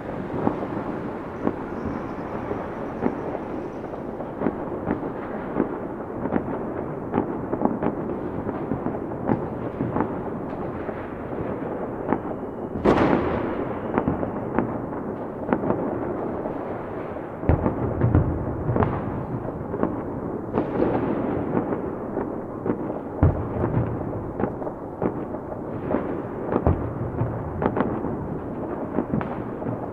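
Fireworks going off without a pause: dense crackling and popping with frequent sharp bangs, a big blast about 13 seconds in, and deep booms from about 17 seconds on.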